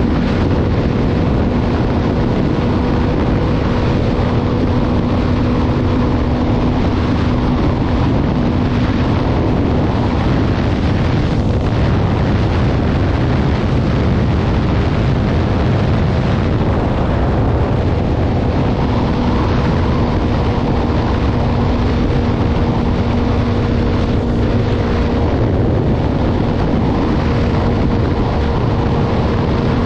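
Wind buffeting the microphone of a motorcycle riding at highway speed, with the engine's steady hum underneath. The hum fades for several seconds partway through, then returns.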